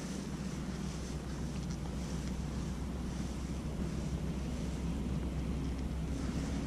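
Wind buffeting the camera microphone: a steady low rumble under an even rushing noise, setting in right at the start.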